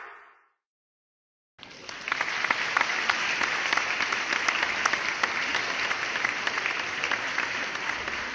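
Background music fading out, a second or so of silence, then steady applause, many hands clapping together.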